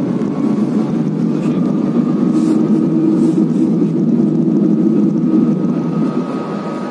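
Passenger train running, heard from inside the carriage: a steady low rumble with a faint high whine, swelling a little in the middle and easing off near the end.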